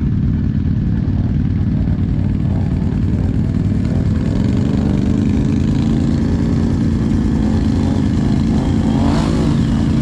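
Can-Am ATV engine running steadily, its pitch rising a little about four seconds in and then holding.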